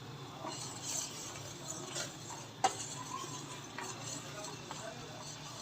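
A metal spoon lightly clicking and tapping against a saucepan as loose tea leaves are spooned into the spiced water, with one sharper click about halfway through, over a faint steady hum.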